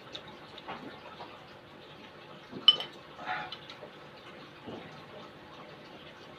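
Spoon clinking against a bowl while soup is eaten: one sharp, ringing clink about two and a half seconds in, with quieter small clicks of eating around it.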